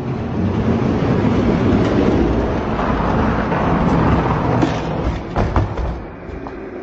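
Two die-cast toy monster trucks rolling fast down a plastic Hot Wheels-style track, their big plastic wheels making a loud, steady rumble. It ends with a few sharp knocks about five and a half seconds in as they reach the finish.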